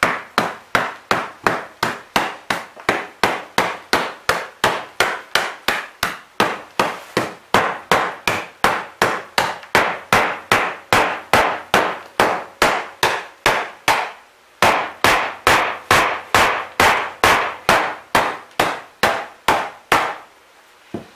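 Claw hammer striking a water-rotted wooden subfloor over and over, about three blows a second, breaking it apart. The blows stop briefly about two-thirds of the way through, then resume and stop shortly before the end.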